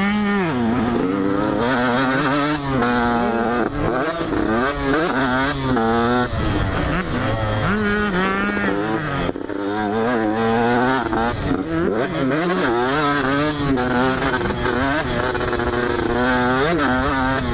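2004 KTM 125 SX two-stroke dirt bike engine at race pace, its pitch repeatedly climbing as it revs out and dropping as gears change or the throttle is rolled off, heard close up.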